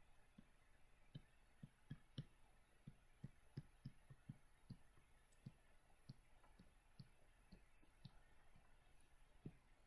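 Faint, irregular taps of a stylus on a tablet screen during handwriting, a few a second.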